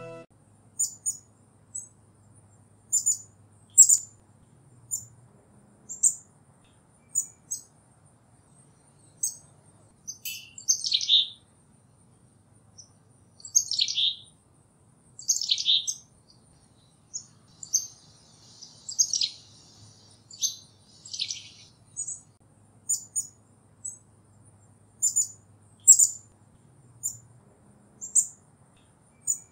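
Black-capped chickadee calling: a scatter of short, high, thin notes every second or two, with a few lower, longer notes that fall in pitch about 10, 14–16 and 19–21 seconds in.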